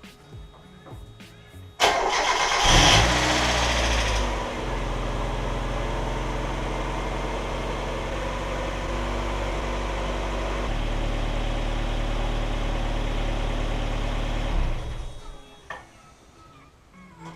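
Mazda MX-5 Miata four-cylinder engine starting about two seconds in, flaring up briefly and then settling into a steady idle that steps up slightly about halfway through. It is switched off and dies away a few seconds before the end. This is the first start-up after a new aluminium radiator was fitted and filled with plain water.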